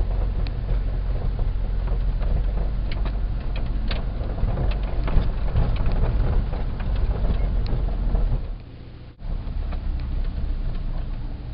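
VW bus driving, heard from inside the cab: steady engine and road rumble with rattles and clicks from the body. The rumble drops away for under a second a little after eight seconds, then comes back.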